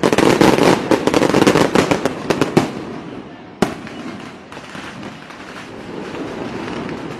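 Fireworks going off: a dense, rapid crackle of many small bangs for the first two or three seconds, one sharp bang a little after the middle, then softer crackling.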